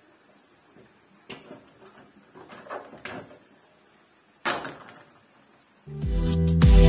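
Soft scraping and tapping of a thin HPL laminate strip being handled on a plywood saw table, with one sharper knock about four and a half seconds in. Loud music with a steady beat starts near the end.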